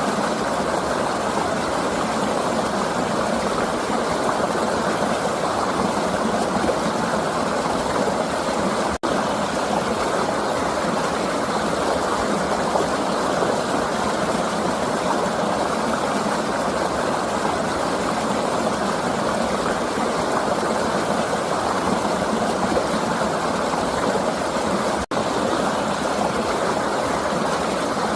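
River water flowing in a steady, even rush, with two momentary dropouts, about nine seconds in and near the end.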